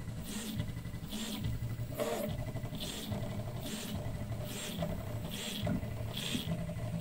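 Prusa 3D printer running its mesh bed-levelling calibration: the stepper motors whir in short moves about twice a second as the print head steps between probe points, over a steady machine hum.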